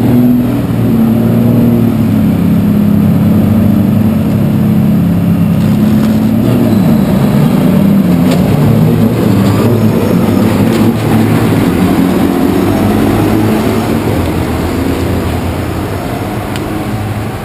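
Heavy diesel truck engines of a dump truck and a big-rig tractor held at high revs, running loud and steady with a wavering pitch, then fading somewhat near the end.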